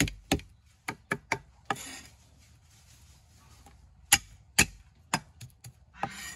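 Cleaver blade striking a thick round wooden chopping block as garlic cloves are smashed and chopped. There is a quick run of sharp chops, then a short scraping sound, a pause of about two seconds, another run of chops, and a second scrape near the end.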